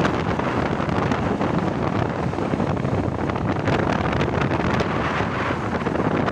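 Intercity bus running along the road, its 'ngorok' (growling) exhaust mixed into a steady traffic roar, with heavy wind buffeting on the microphone.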